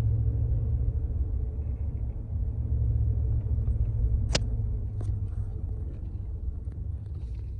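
Low, steady rumble of a car driving, heard from inside the cabin, with a sharp click about four seconds in.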